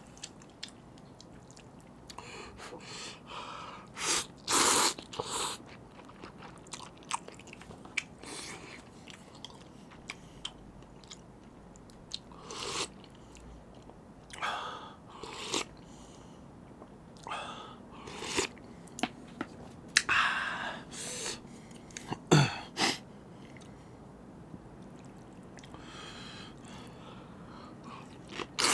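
Close-miked eating of spicy seafood noodles: chewing and biting, with short louder bursts every few seconds.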